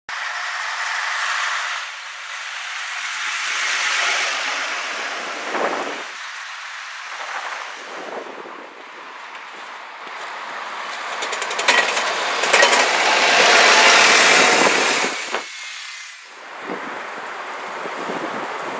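Street traffic, with double-decker buses and cars passing: the noise swells and fades as each vehicle goes by, and is loudest about two-thirds of the way through.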